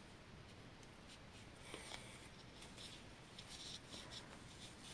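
Faint rustling and soft scratching of yarn being drawn through knitted fabric while sewing a seam, a few brief rustles about two seconds in and again toward the end.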